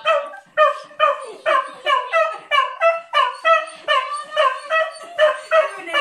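Dog barking excitedly in a fast run of high yelps, about two a second, as it greets a visitor at the door.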